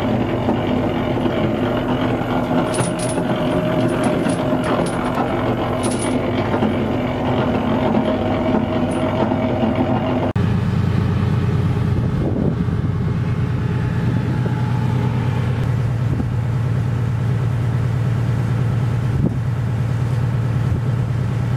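Steady drone of a boat's engine running, heard on board, with a few light metallic clinks of the anchor chain being handled about three to six seconds in. About ten seconds in the drone changes abruptly to a deeper, steadier hum.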